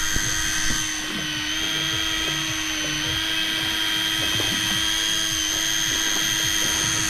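Electric deep-drop fishing reel's motor whining steadily as it winds in line under a heavy load, straining against a big fish.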